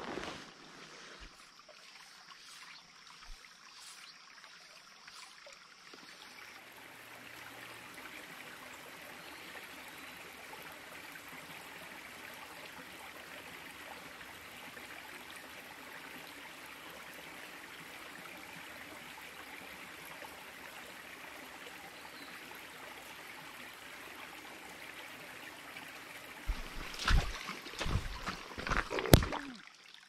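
A small, shallow stream trickling steadily over rocks and gravel. Near the end come several loud, sudden thumps and knocks.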